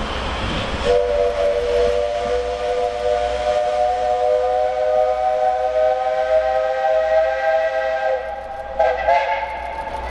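Multi-tone steam whistle of the 8620-class steam locomotive 58654, blowing one long blast of about seven seconds, then a second short blast near the end, after a brief hiss of steam.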